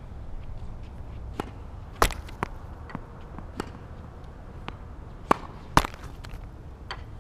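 Tennis balls being struck with rackets and bouncing on the court: a run of sharp pops of varying loudness, the two loudest about two seconds in and just before six seconds, over a steady low rumble.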